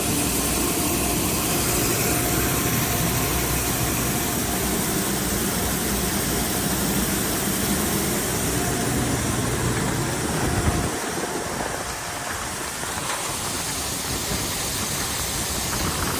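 Grain bin unloading equipment, the sweep auger and grain cleaner, running steadily as shelled corn moves through it. The low rumble drops away about eleven seconds in.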